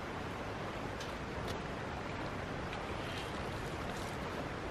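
Steady rushing outdoor background noise, with a couple of faint clicks about a second in.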